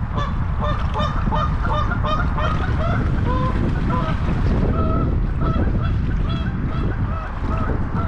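Geese honking: a flurry of short calls, several a second, thinning out to fewer, longer honks later on.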